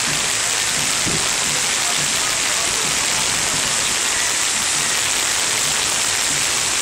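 Steady rain falling on wet pavement and puddles, a dense, even hiss.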